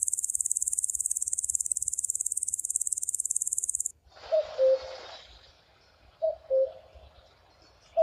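An insect's high, rapidly pulsing trill stops abruptly about four seconds in. A pigeon then coos in short two-note phrases, a few times.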